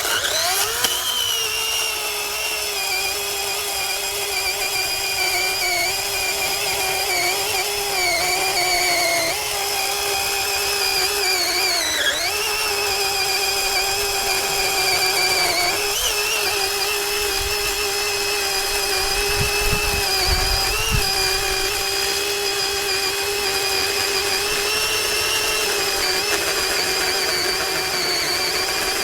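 Greenworks 40V brushless cordless chainsaw running: it spins up at the start, then holds a steady high electric whine. The pitch dips briefly a few times, most deeply about twelve seconds in.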